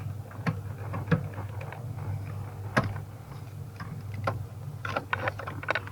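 Irregular sharp clicks and taps of parts and tools being handled by hand, about a dozen, the loudest near the middle and several close together near the end, over a steady low hum.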